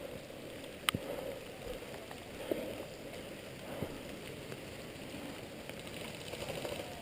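Steady rain falling around the microphone, with a sharp click about a second in and a couple of fainter knocks later.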